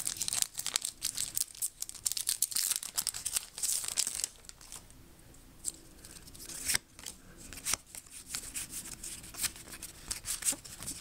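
A Pokémon trading card booster pack's wrapper being torn open and crinkled, dense crackling for the first four seconds or so, then quieter rustling and scattered light clicks as the cards are slid out and fanned in the hands.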